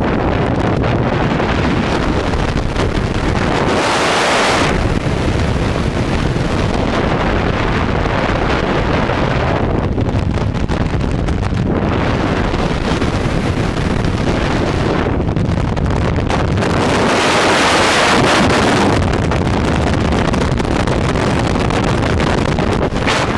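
Loud freefall airstream buffeting a camera's microphone during a skydive: a steady rush of wind noise that swells, getting hissier, about four seconds in and again in the second half.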